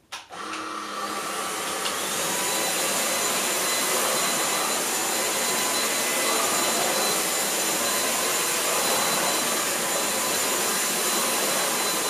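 MOOSOO K17 cordless stick vacuum's brushless motor switched on, spinning up over the first second or two, then running steadily with a high whine as the spinning brush head is pushed over thick shag carpet.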